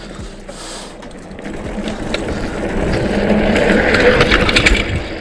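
Mountain bike rolling fast down a dirt trail: knobby tyres rumbling over the ground and the bike rattling over bumps. The noise builds through the second half, with a quick run of clattering knocks near the end.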